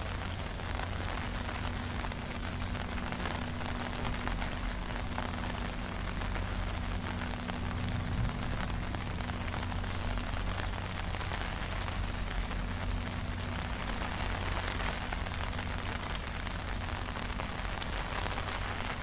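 Steady hiss of heavy rain falling on pavement and standing floodwater, with a faint low hum underneath.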